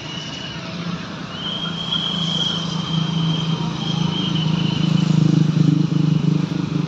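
Road traffic with motor vehicle engines running close by, growing louder from about two seconds in, with a thin high tone coming and going above it.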